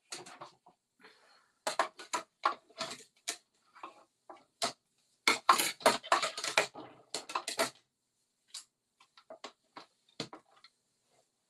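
Irregular clicks and clatter of cutting plates and metal dies being handled at a hand-cranked die-cutting machine, busiest from about two to eight seconds in, then a few scattered clicks.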